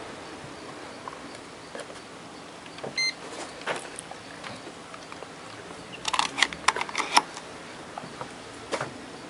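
A short electronic beep from a digital multimeter about three seconds in, among scattered sharp clicks and knocks of handling test gear on a workbench, with a quick run of clicks a little past halfway.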